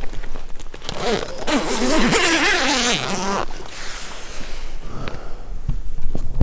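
Tent door zipper being pulled open: a rasping run of about two seconds, starting about a second and a half in, with fabric rustling around it.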